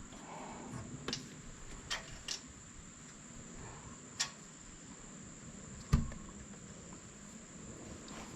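Faint scattered clicks and taps of small metal engine parts being handled and fitted by hand during valve reassembly, with one louder knock about six seconds in.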